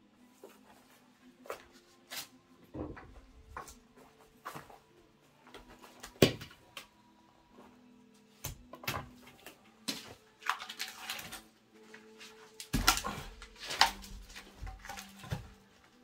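Larch firewood being handled: irregular wooden knocks and clatter of logs and split pieces being set down and moved. The loudest single knock comes about six seconds in, and a cluster of heavier knocks comes around thirteen seconds.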